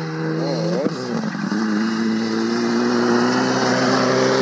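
Mitsubishi Lancer Evolution rally car's turbocharged four-cylinder engine under hard acceleration on a gravel stage, getting steadily louder as it approaches. The engine note wavers and drops about a second in, like a gear change, then holds and slowly climbs. A hiss of tyres on gravel builds near the end.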